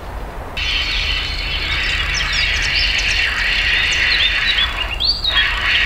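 Birds singing in a dense chorus of short chirps and whistles that starts abruptly about half a second in, over a low steady rumble.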